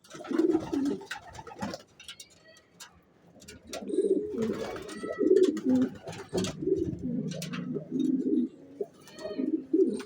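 Racing pigeons cooing in low, burbling calls: a burst at the start, a lull, then near-continuous overlapping cooing from about four seconds in, with scattered faint clicks.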